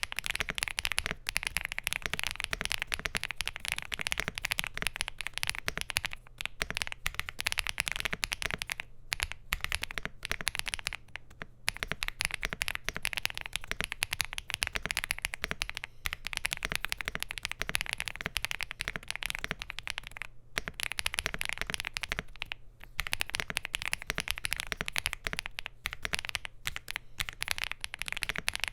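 Fast, continuous typing on a Bridge75 Plus mechanical keyboard with SC linear switches, an FR4 plate, PBT Cherry-profile keycaps and a gasket-mounted aluminium case: a dense stream of key clacks with a few short pauses near the middle.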